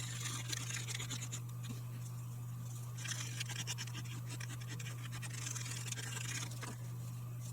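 Sandpaper scratching over a pipe stem and button rebuilt from super glue and carbon, in quick irregular strokes with short pauses, over a steady low hum.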